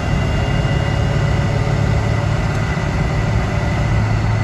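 C5 Corvette's V8 cruising in sixth gear: a steady low engine drone with road noise, heard inside the cabin.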